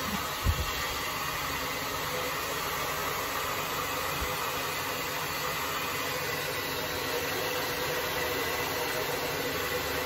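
Handheld hair dryer running steadily, blowing hot air onto the iced-over coil of a split air conditioner to melt the ice. A short low thump about half a second in.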